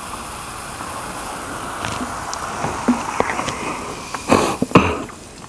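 A drink being poured into a glass, a steady liquid hiss, followed by two loud knocks near the end.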